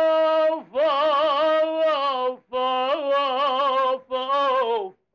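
A solo unaccompanied voice singing in Arabic: a long held note, then three wavering, ornamented phrases separated by short pauses.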